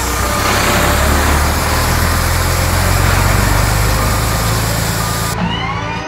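Dump truck sound effect: a steady low engine rumble under a loud rushing hiss of gravel sliding out of the tipped bed. The rushing cuts off suddenly near the end.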